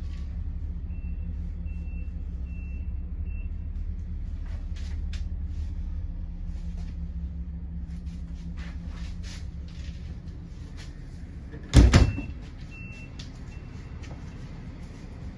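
A Ford 6.8 L V10 gasoline engine idling with a steady low hum, with scattered clicks and a short high beep repeating several times. About twelve seconds in, a single loud bang like a door being shut.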